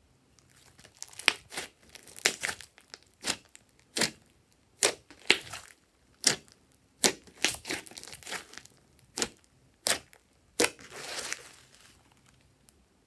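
Thick glossy slime being stretched, folded and pressed by hand, giving a string of sharp, sticky pops and clicks about one every half second to second, with a softer crackling stretch near the end.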